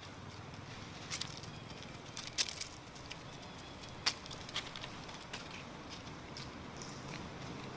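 Dry leaves crackling in a few scattered sharp snaps as monkeys move across leaf-littered ground, over a steady outdoor hiss.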